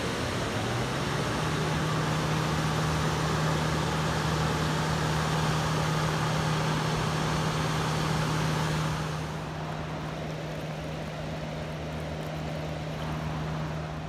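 Fast river water rushing over stones, louder for the first nine seconds or so. Under it runs a steady low motor hum that rises a little in pitch about a second in and holds until near the end.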